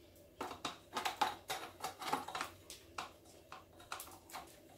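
A quick, irregular run of light clicks and knocks from metal and plastic parts as the slide is worked back onto a Paslode IM350 framing nail gun during reassembly.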